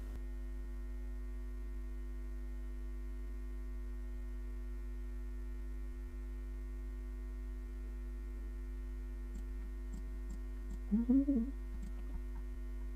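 Steady electrical mains hum: a constant low buzz with fixed tones above it. A brief murmur from a voice sounds about eleven seconds in.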